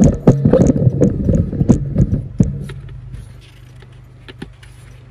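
A plastic fuel filter and cap being handled and fitted into the housing: a quick run of clattering knocks and rattles that dies down about two and a half seconds in, leaving a steady low hum and a couple of faint clicks.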